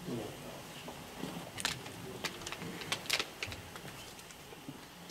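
Quiet prayer hall with scattered soft clicks and rustles as worshippers shift and get up, the clicks thickest in the middle of the stretch.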